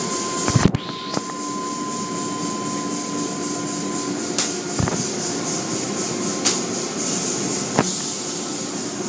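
Automatic tunnel car wash running: a steady hiss of water spray over machinery hum, broken by a handful of sharp knocks as the equipment works over the vehicle.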